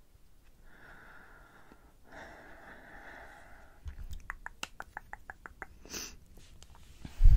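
Two long breaths out close to the microphone, then a quick run of about nine small clicks as a twist-up makeup pencil is wound, a short sniff, and near the end a heavy low thump, the loudest sound.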